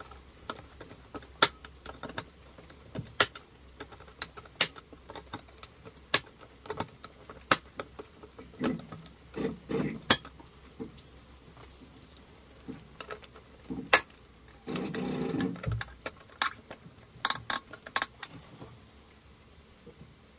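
Torque screwdriver tightening the terminal screws on a consumer unit's breakers: a scattered series of sharp clicks and small knocks, with a louder noise lasting about a second partway through.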